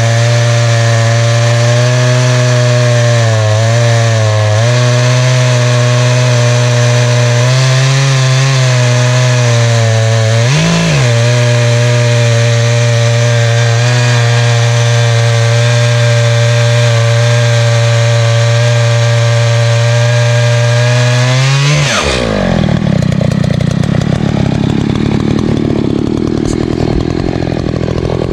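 Echo CS-590 Timberwolf two-stroke chainsaw ripping lengthwise through a black ash log on a chainsaw mill, held at high speed under load, with the pitch sagging slightly in the cut and one brief rise a little before halfway. About three-quarters through, the pitch drops sharply and the steady note gives way to a rougher, lower sound.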